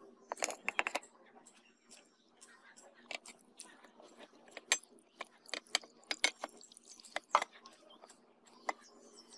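Scattered sharp clicks and clinks as a rusty steel meat cleaver and a steel cup are handled against a terracotta bowl while the blade is rinsed with poured water. A faint steady low hum sits underneath.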